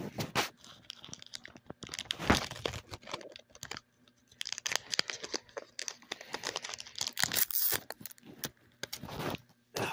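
Foil Yu-Gi-Oh booster pack wrapper being torn open and crinkled in the hands: a run of crackling rips in several spells, the loudest about two seconds in.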